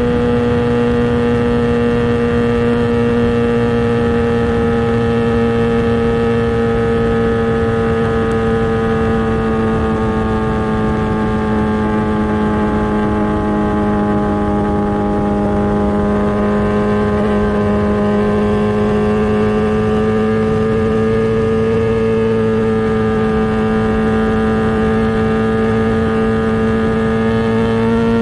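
Kawasaki ZX10R's inline-four engine through an SC Project exhaust, held at steady high revs while riding. The pitch sags slightly midway and climbs back near the end.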